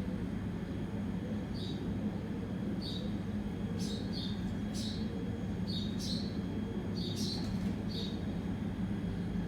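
Baby birds in the nest giving short, high chirps, repeated irregularly, about ten in a few seconds, over a steady low hum.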